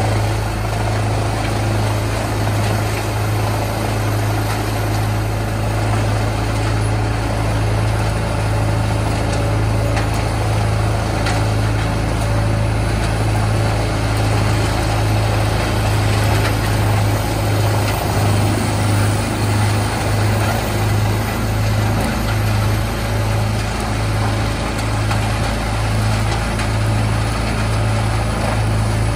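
Tracked whole-tree chipper's diesel engine running steadily under load while chipping wood. It makes a loud low drone that throbs rhythmically in the later part.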